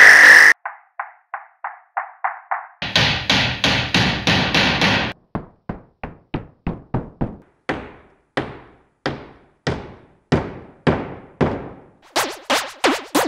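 Claw hammer strikes, played through a series of digitally altered versions: first about eight thin, tinny hits, then a dense, loud run of blows, then single sharp strikes with ringing tails, spaced ever wider apart. Near the end comes a fast run of ringing strikes.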